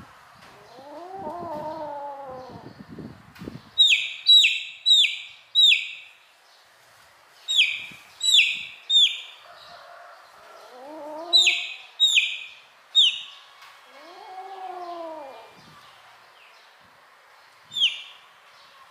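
A chick peeping loudly in quick runs of three or four high calls that each drop in pitch, with a single peep near the end. Between the runs, a kitten meows three times, each meow long and rising then falling in pitch.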